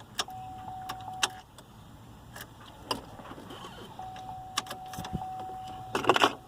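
An electronic beep tone sounding twice, first for about a second and then for about two seconds, among scattered sharp clicks, with a short rustle near the end.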